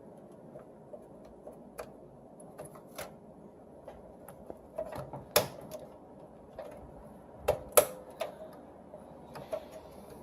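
Hands working memory modules and their latches inside a desktop PC: scattered light plastic clicks and taps, with two louder clicks about five and eight seconds in.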